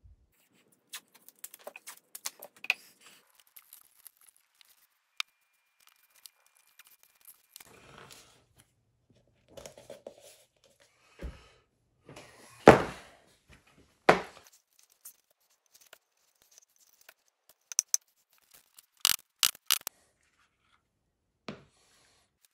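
Hands working leather strips around a tape-wrapped plastic cup on a cutting mat: scattered small clicks and taps, a louder scrape about halfway through with another just after, and a quick run of sharp clicks near the end.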